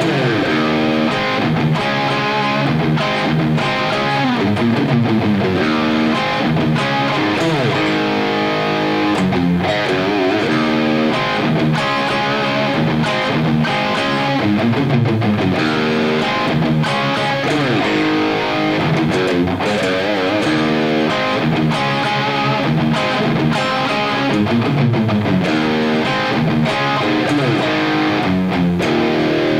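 Distorted electric guitar playing a fast, percussive metal riff, broken by many short, clipped stops.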